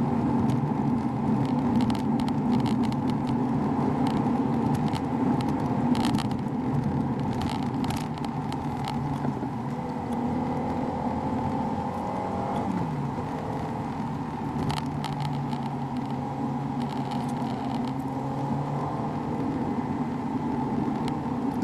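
Volkswagen Lupo GTI's 1.6-litre four-cylinder engine and tyre noise heard from inside the cabin, driving at a steady pace. The engine note shifts and briefly drops about halfway through, and a few short clicks or rattles come and go.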